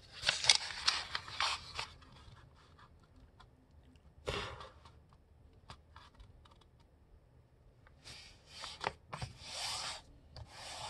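A sheet of letter-size paper being folded and its crease pressed down and rubbed flat: papery rustling and scraping in bursts, about two seconds of it at the start, a short sharp rustle about four seconds in, then more near the end.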